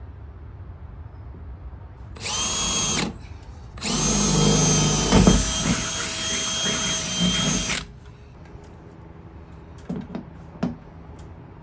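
DeWalt cordless drill boring a hole through the sheet-metal body of a school bus: a short burst of drilling, then a pause and a longer run of about four seconds with the motor whining steadily as the bit cuts the metal.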